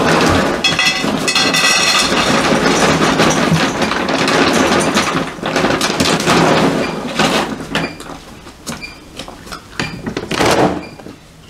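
Dry dog kibble poured from a large plastic bag into a metal bowl: a dense, loud rattle of pellets for about seven seconds, then quieter scattered clicks. A short loud rustle of the plastic bag comes near the end.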